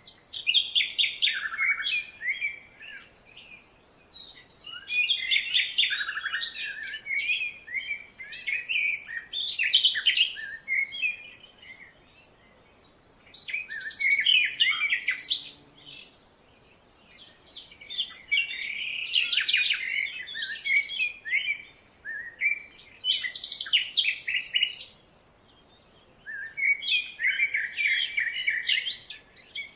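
Songbirds singing: about seven bursts of rapid, high chirping phrases, each a few seconds long, with short pauses between them.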